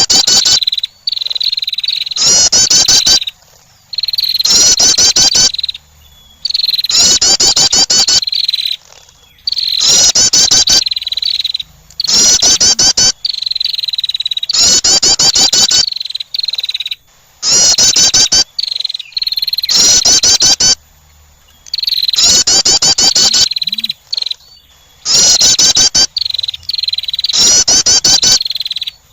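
Female wren call, as used to attract wrens: loud, short phrases of rapid high trills, repeated about every two to three seconds. A steady high insect chirring fills the gaps between phrases.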